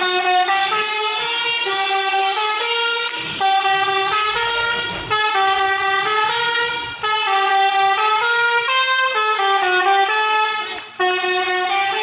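Basuri musical horn on an intercity bus playing a tune in held notes that step up and down. It breaks off abruptly and starts again about five, seven and eleven seconds in.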